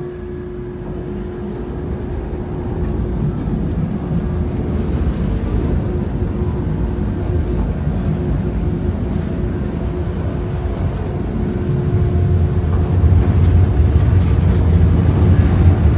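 Passenger ferry's engines running, a steady low rumble that grows louder over the last few seconds, with a faint steady hum above it at first.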